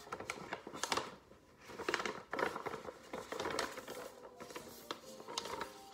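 Stiff paper shopping bags, with a smooth, almost waxed finish, rustling and crinkling as they are handled and folded, in irregular crackles and taps.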